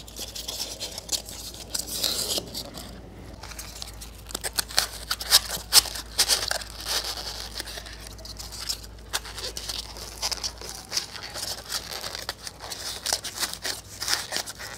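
Styrofoam being broken and packed down into a cardboard tube: irregular squeaky crunching and crackling, busiest in the middle.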